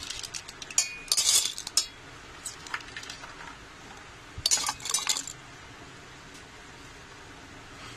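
Dried dal and pieces of fresh coconut tipped into a stainless steel mixer-grinder jar, clattering against the steel and the blades in two bursts, about a second in and again about four and a half seconds in, with a few single clinks between.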